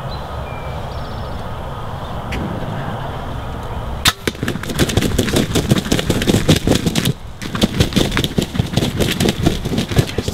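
A sharp snap of a bow shot about four seconds in, then a long run of rapid, irregular flapping and thrashing as the arrowed wild turkey flops on the ground among the corn stalks, with a short lull a few seconds later.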